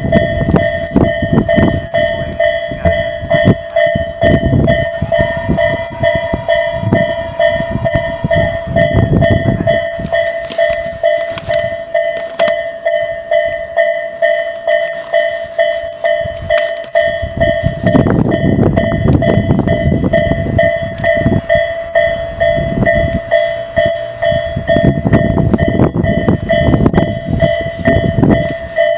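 Japanese level-crossing warning bell ringing in a steady electronic ding-ding pulse while trains clatter and rumble over the crossing, once in the first third and again in the second half. A train's horn sounds for about three seconds early on.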